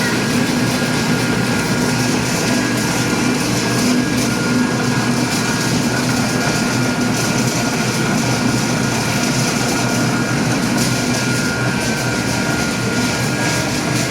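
Wood pellet plant machinery running steadily: a loud, even mechanical noise with a low hum and a fainter higher tone held throughout.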